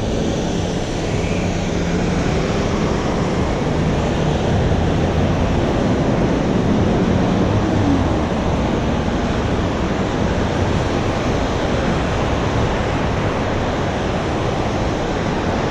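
Steady rush of road traffic passing through an intersection: car tyres and engines.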